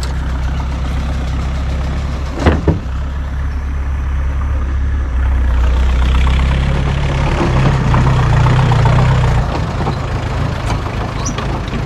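Pickup truck's engine running as it drives slowly along a dirt track, with a brief knock about two and a half seconds in. In the second half a farm tractor's engine joins, louder for a few seconds as the tractor passes close alongside.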